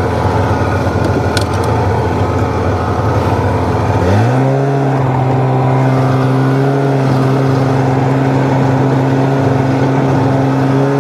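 Polaris Indy 500 snowmobile's two-stroke engine running as the sled moves off. It runs rough and low for the first few seconds, then about four seconds in it revs up in a quick rise and holds a steady pitch under way.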